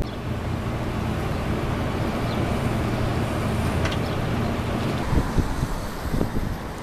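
Wind buffeting the microphone over a steady low rumble that eases about five seconds in.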